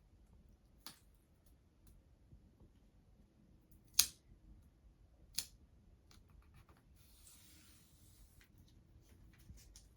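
A few sharp clicks and taps from tools being handled while measuring. The loudest click comes about four seconds in, and a short hiss follows around seven seconds in.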